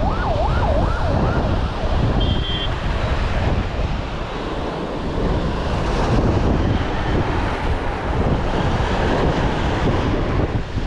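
Sea wind buffeting the microphone over surf. In the first second and a half a pitched tone wavers rapidly up and down several times, and a little after two seconds there is a short high beep.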